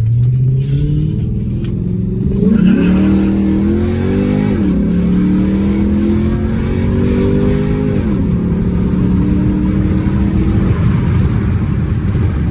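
Chrysler 300 SRT8's V8 under hard acceleration, the revs climbing and dropping back at two upshifts, about four and a half and eight seconds in, then holding steady.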